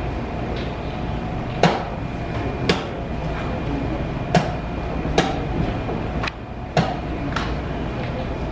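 Wooden chess pieces knocked down on the board and a chess clock's buttons slapped in quick alternation during a blitz game played with only seconds left. About seven sharp knocks come at uneven intervals of roughly a second, over a steady background din.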